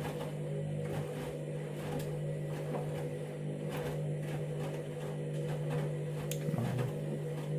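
Candy washing machine's drum motor humming steadily as it turns a small load, with light repeated clicks and swishes from the tumbling drum.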